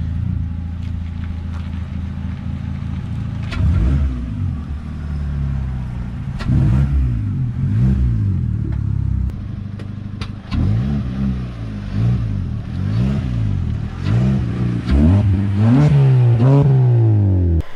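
Peugeot 206 CC's 1.6-litre 16-valve engine revved in many quick blips, each rising and falling in pitch, coming more often in the second half as the car moves past, through an aftermarket straight-through exhaust.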